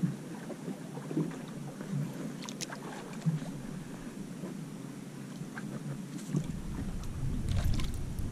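Wind and water noise aboard a drifting fishing boat, with a few light ticks. A low wind rumble on the microphone comes in about six seconds in.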